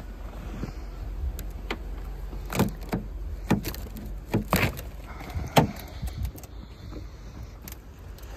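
Hands at the door of a snow-covered car: a string of sharp clicks and knocks, loudest about five and a half seconds in, as the door is worked and opened, over a steady low rumble.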